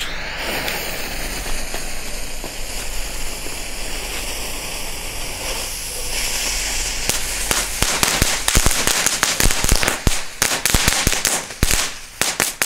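A Magic Strings crackling string, a red paper-wrapped string of crackling composition, being lit and burning. A steady hiss for about the first six seconds as it is lit and the fuse burns, then from about seven seconds in a dense, irregular run of loud sharp crackles and pops as it burns slowly along.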